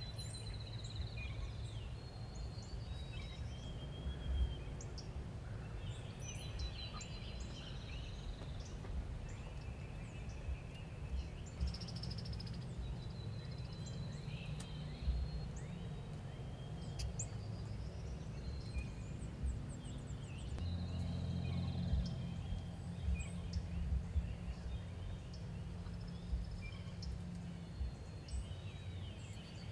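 Outdoor springtime ambience: several wild birds calling and singing in short chirps and trills, over a steady low rumble.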